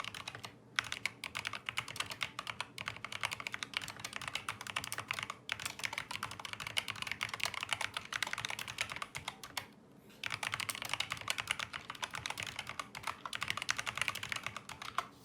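COX CK200 mechanical keyboard with Kailh optical linear switches being typed on fast, on a long desk pad: a dense run of keystroke clicks, with brief pauses about half a second in, about five seconds in and near ten seconds.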